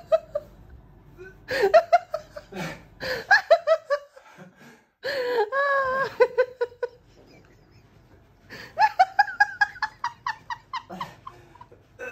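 A person laughing hard in repeated bouts of quick, breathy pulses, with a long, wavering high-pitched cry about five seconds in.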